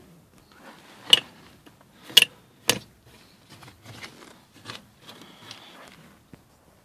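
Peugeot 308 door handle being worked by hand: sharp clicks with short squeaks, three louder ones about a second, two seconds and two and a half seconds in, then fainter clicks and creaks. The creak comes from the handle's decorative trim covers.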